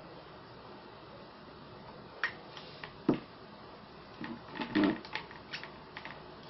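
Hard plastic clicks and knocks from handling a homemade PVC airgun: a knock about two seconds in, a louder one around three seconds, then a quick cluster of clicks and knocks near the end as the end cap on top of the pipe is worked by hand.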